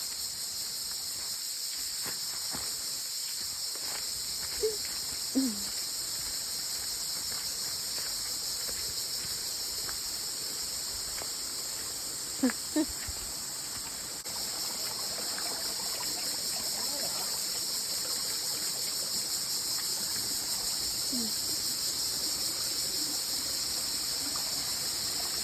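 Steady, dense, high-pitched chorus of tropical forest insects. Two pairs of brief short sounds stand out, around five seconds and twelve seconds in.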